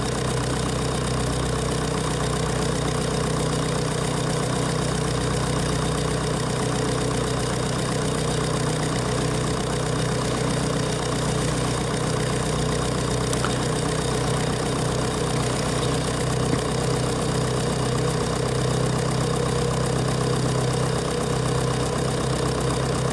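Nuffield tractor engine running steadily as the tractor drives along, heard from the bonnet right beside its upright exhaust pipe; the engine note stays even throughout.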